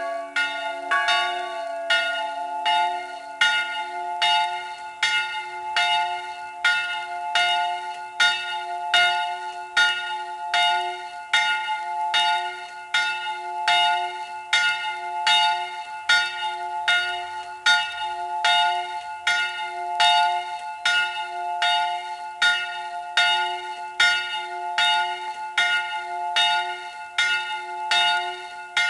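A swinging church bell in a tower, rung in a steady, even run of strokes a little faster than one a second, each stroke ringing on. A lower hum dies away over the first few seconds.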